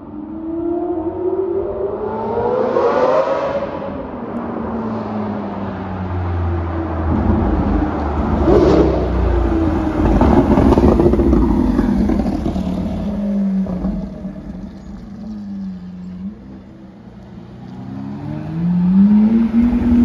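Lamborghini Aventador LP700-4's 6.5-litre V12, straight-piped through a Capristo exhaust with no silencers, revving hard as the car drives past. The engine note climbs and drops several times and is loudest about halfway through.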